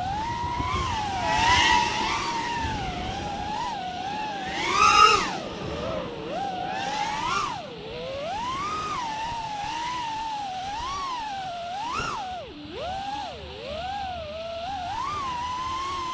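A 5-inch FPV freestyle quadcopter's brushless motors and propellers whining in flight, the pitch sliding up and down constantly with the throttle. There are sharp rising surges about a second and a half in and, loudest, about five seconds in.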